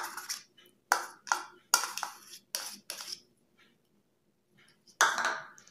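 Metal spoon knocking and scraping against the rim of a plastic blender jar to shake off margarine: a quick run of sharp taps in the first three seconds, then one longer scrape near the end.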